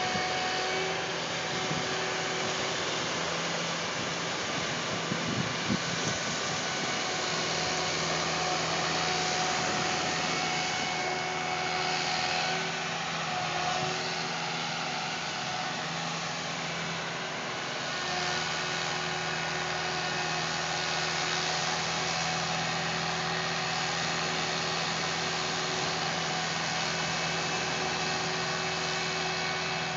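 Tall three-wheeled tripod beach vehicle's engine running steadily, under an even hiss of surf and wind. A few low bumps come about five seconds in.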